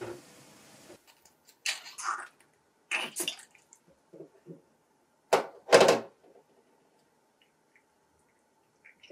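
Snail shells and a fork knocking and clattering against a stainless steel sink and metal colander as snails are handled, with the two loudest knocks about five and a half and six seconds in. Before that, in the first second, there is the bubbling of a pan on the boil.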